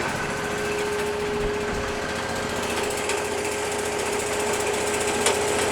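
Wood-Mizer LT40 sawmill's engine running steadily, a constant mechanical drone with a steady hum.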